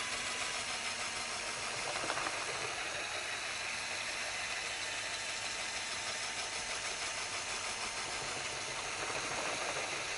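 Handheld drill running steadily at slow speed, turning a paddle mixer through water-based epoxy primer in a bucket, with a faint steady whine over an even churning noise.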